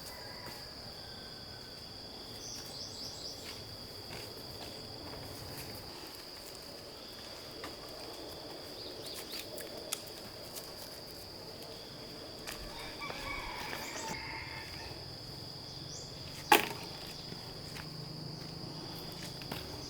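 Insects such as crickets calling steadily in a high continuous drone, with a second insect trilling on and off every few seconds and a few short chirps. One sharp knock comes about three-quarters of the way through and is the loudest sound.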